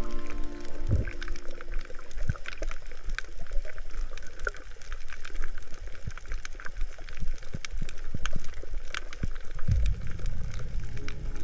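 Underwater sound picked up by the camera: a low water rumble with scattered sharp clicks and crackles. Background music stops about a second in and comes back near the end.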